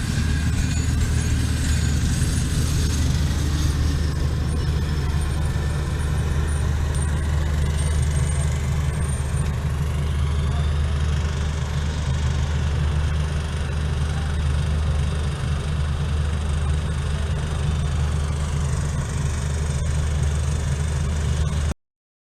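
Diesel locomotive engine running steadily with a deep drone over a steady rushing hiss. The sound cuts off abruptly near the end.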